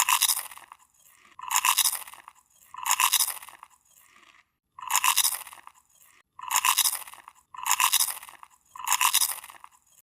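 A crunching sound repeated at a steady pace, seven times, each lasting under a second.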